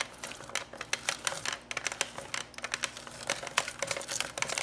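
Half a lemon being squeezed for its juice: a quick, irregular run of small clicks and crackles.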